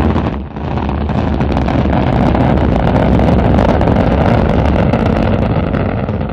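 Rocket engine firing: a loud rushing rumble that dips briefly under half a second in, then holds steady and starts to fade near the end.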